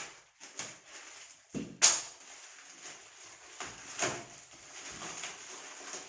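Plastic packaging wrap crinkling and rustling in irregular bursts as a wrapped gym-kit part is handled and unwrapped, with one sharp, louder noise about two seconds in.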